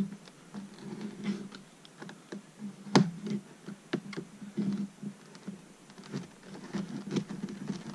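Knife cutting and prying at a stiff clear-plastic clamshell package: irregular clicks and crackles of the hard plastic, with a sharper click about three seconds in.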